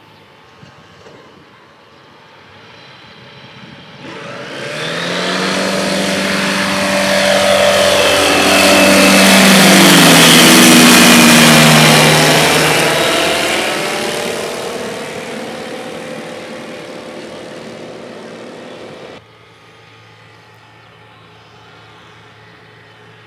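Light aircraft's propeller engine passing low overhead: it swells in, is loudest about halfway through with its pitch dropping as it goes by, then fades away. The sound cuts off suddenly a few seconds before the end, leaving faint background.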